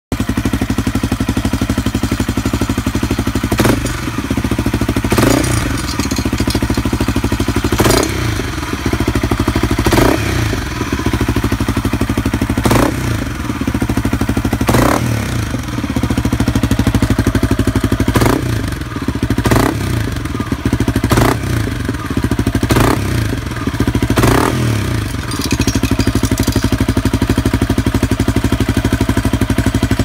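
Honda CRF motorcycle engine idling steadily, with a sharp metallic clink like a dropped coin sounding about a dozen times at irregular intervals of one to three seconds. The cause of the clink is unknown.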